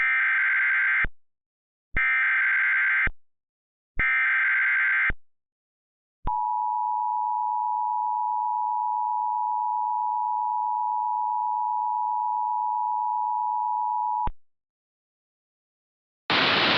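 Emergency Alert System header: three one-second bursts of warbling digital data tones, followed by the steady two-note EAS attention tone held for about eight seconds, which cuts off abruptly. Near the end a burst of radio static begins.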